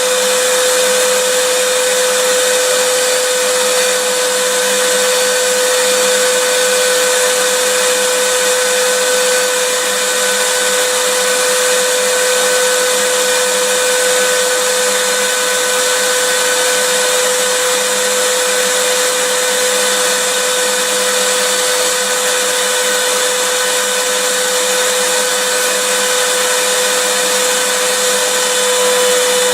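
Vacuum cleaner running steadily: a constant airy rush with a steady mid-pitched whine from the motor, unchanging throughout.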